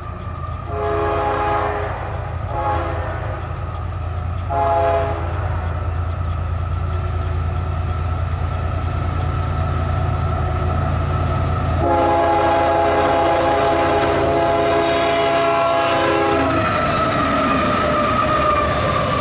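Canadian Pacific GE ES44AC diesel locomotive sounding its air horn for the crossing as it approaches: three short blasts in the first five seconds, then one long blast of about four and a half seconds, over the steady rumble of its diesel engine. Near the end the locomotive passes close by and the noise of wheels on rail rises.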